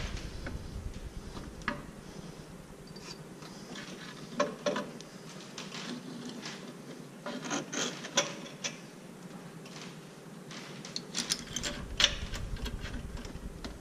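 Replacement alternator being set on its mount and its bolts started by hand in a pickup's engine bay: scattered small metal clicks, taps and rubbing, with a cluster of sharper knocks near the end.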